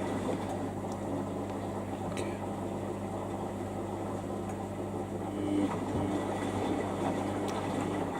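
Samsung EcoBubble washing machine filling with water: a steady low hum over the rush of water, which cuts off suddenly at the very end as the fill stops.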